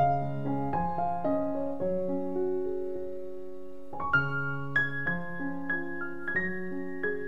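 Background piano music: single notes struck one after another over held chords, with the chord changing every second or two.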